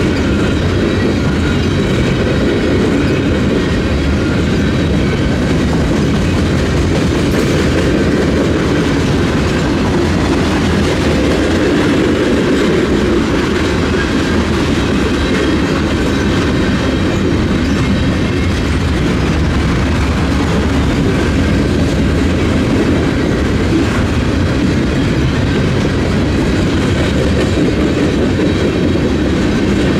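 Union Pacific freight train rolling past, its wheels on the rails making a steady, unbroken rumble.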